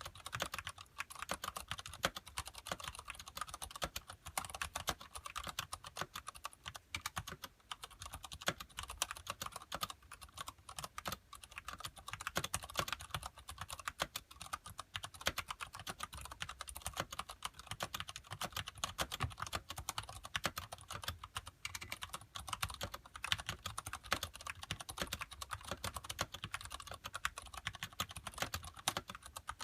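Continuous fast typing on a Ducky Shine Mini mechanical keyboard with Cherry MX Brown switches and thick PBT keycaps: a dense, unbroken stream of key clicks and clacks.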